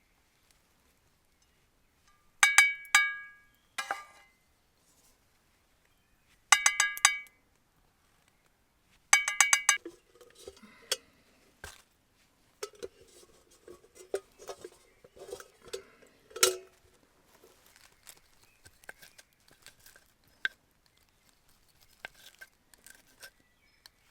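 Metal cookware clinking: four sharp, ringing knocks of metal on metal, followed by softer, irregular scraping and clicking.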